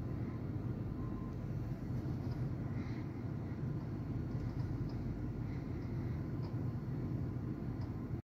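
Steady low rumbling background noise with a few faint ticks scattered through it and no distinct event.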